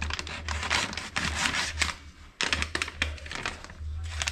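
Paper bag rustling and crinkling as it is torn open, in two spells with a short pause about two seconds in.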